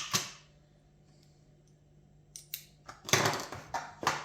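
Sharp plastic clicks and a brief rattle of screwdriver bits and their plastic bit holder being handled: a couple of clicks at the start, then several more and a short rattling clatter about three seconds in.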